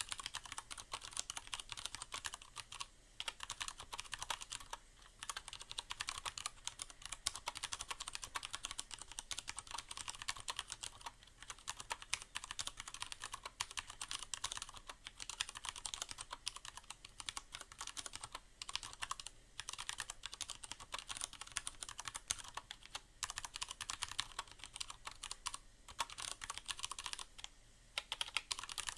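Continuous typing on a Leopold FC750R mechanical keyboard with Cherry MX Brown switches: a dense run of key clacks, broken by a few short pauses, from a case damped by a sound-absorbing pad inside.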